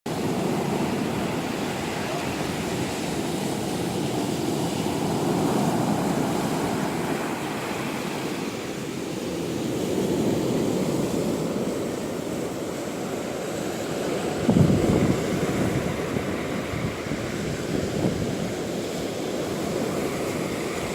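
Stormy sea surf: waves breaking over and over, the noise swelling and easing every few seconds. About fifteen seconds in there is one sudden louder, deeper crash.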